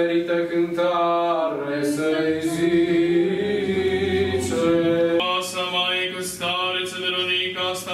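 A cappella Orthodox church chant sung by a choir of nuns in several voices, holding long notes that step to a new pitch every second or two.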